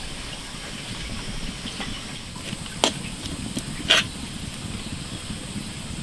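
Snails grilling in their shells on a wire rack over a wood fire: a steady low hiss and rumble, with two sharp clicks about a second apart near the middle.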